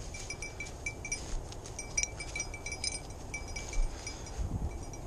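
Small bell on a bird dog's collar jingling in short, irregular clinks as the dog moves through the grass.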